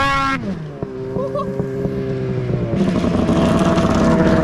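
Snowmobile engine revving. It drops off right at the start and runs at a steady speed for a couple of seconds. About two-thirds of the way through it opens up, louder and rougher, and holds high revs to the end.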